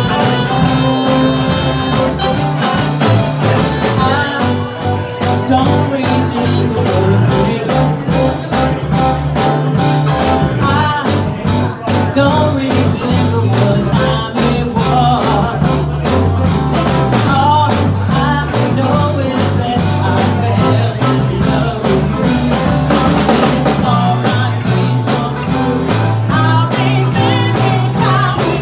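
Live band playing an upbeat pop-rock song: guitar over a walking bass line and steady drums.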